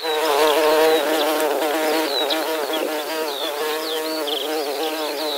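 A swarm of insects buzzing: a steady, slightly wavering drone of several overlapping wingbeat pitches, with faint short high chirps over it.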